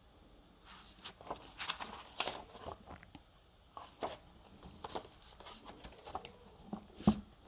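Pages of a hardcover book rustling and turning as it is handled, in a series of short rustles and clicks, with a soft knock near the end.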